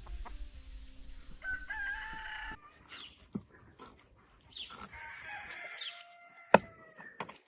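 Rooster crowing: a short call about two seconds in, then a longer crow in the second half. A sharp click near the end is the loudest sound.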